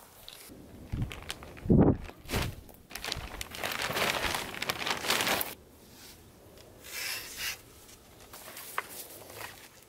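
A large clear plastic sheet being handled and shaken out, crinkling loudly for about two and a half seconds. A few dull thumps come first, and softer rustles and small clicks follow.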